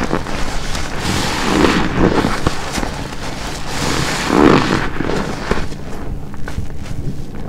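Soapy black car wash sponge squeezed by hand again and again, squelching wet foam and shampoo, swelling about every two to three seconds.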